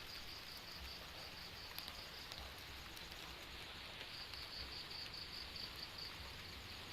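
An insect chirping faintly in a rapid, even pulsing trill, in two runs of about two seconds each, the second starting about four seconds in, over a faint steady hiss.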